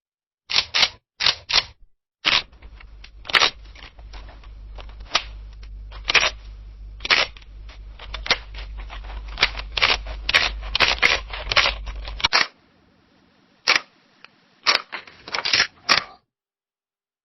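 Camera shutter clicking, over and over, in quick runs of several clicks. A low hum sits under the clicks through the middle stretch. The clicking stops near the end.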